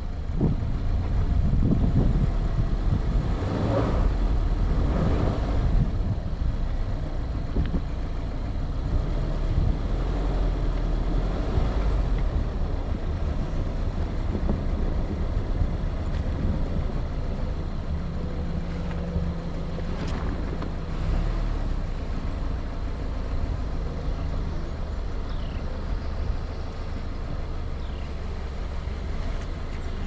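2020 Subaru Outback's flat-four boxer engine running at low speed with tyres rolling over a rutted dirt track, a steady low rumble picked up on the hood.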